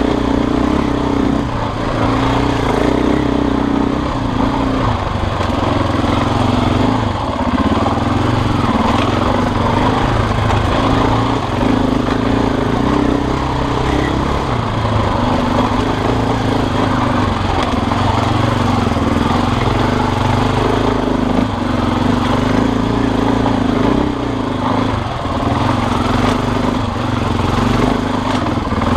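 An engine running steadily, with a low hum and a steady mid-pitched drone that now and then dips briefly and returns.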